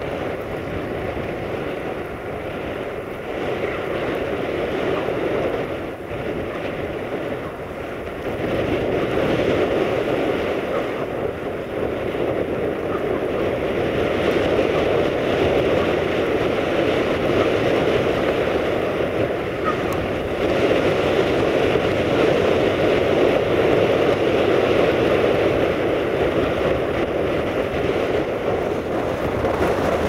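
Blizzard wind blowing across the microphone, a steady rushing noise that gets louder about eight seconds in and again about twenty seconds in.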